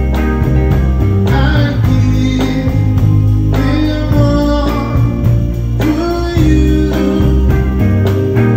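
A live band with electric guitar, bass and drums plays a soul song over a steady drum beat, with a voice singing in places.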